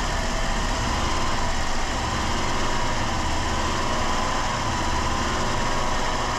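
2007 Dodge Caravan's 3.3-litre V6 running steadily at raised revs, burning off intake cleaner that has just been fed into the engine.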